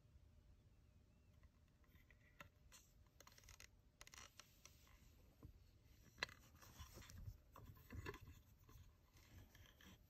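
Faint handling noise from a hardwood rifle handguard with a metal carry handle being turned over in the hand: light scrapes and rubs with small clicks, the sharpest a little past the middle.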